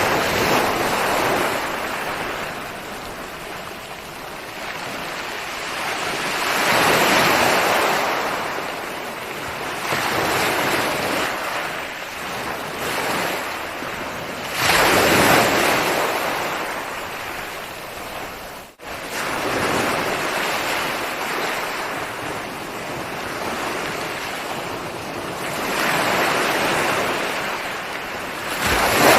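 Ocean waves breaking and washing up the shore, swelling and fading every five to seven seconds, with one wave coming in sharply about halfway through.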